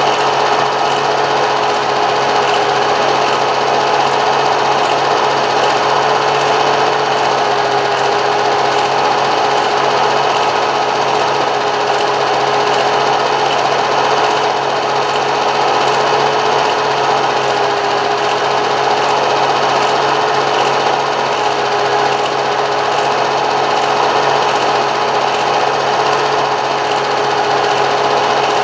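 Steady mechanical whirring and clatter of a film projector running, with a steady hum, unchanging throughout.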